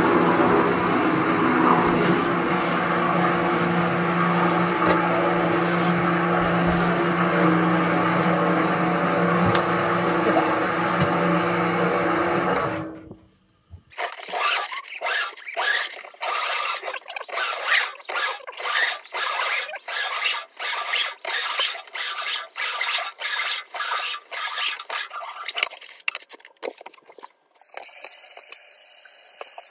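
High-pressure drain-cleaning washer running steadily with a low hum, cutting off abruptly about 13 seconds in. After a moment's silence come irregular rough scraping strokes, a few a second, easing off near the end.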